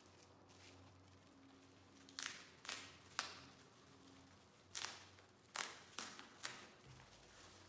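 Bubble-wrap mailer crinkling and crackling in about seven short bursts as hands open its flap and slide the contents out.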